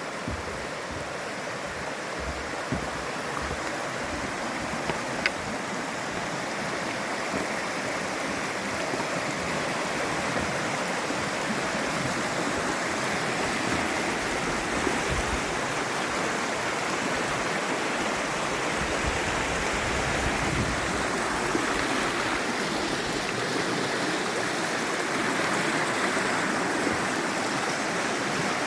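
Steady rushing water noise that grows a little louder over time, with a couple of sharp clicks in the first few seconds.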